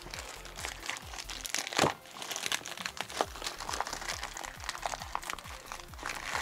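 White plastic mailer bag crinkling and crackling as hands crumple it open and pull a box out of it, with one sharper crackle about two seconds in.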